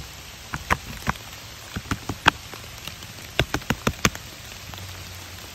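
Steady rain hiss with a scatter of sharp, irregular close taps coming in small clusters through the first four seconds.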